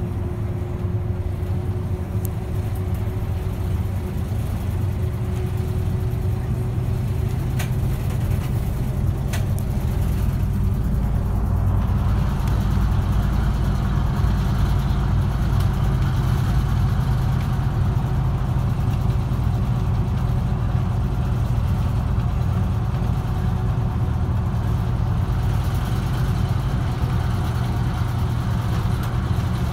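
Route bus running along the road, heard from inside the cabin: a steady low engine drone with tyre and road noise. About twelve seconds in, the road noise grows louder and stays up. Two faint short clicks come a little before that.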